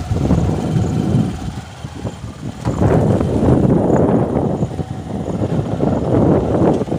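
Motorcycle running along a rough dirt track, heard from the rider's seat, with wind buffeting the microphone. The noise dips briefly about two seconds in, then picks up again.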